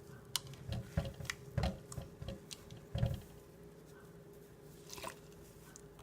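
A soaked makeup sponge being squeezed and handled in soapy water: wet squishing and dripping, with several light clicks and knocks during the first three seconds, then quieter.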